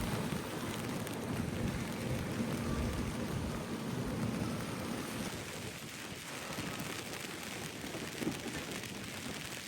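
Heavy rain pouring steadily, with a low rumble underneath.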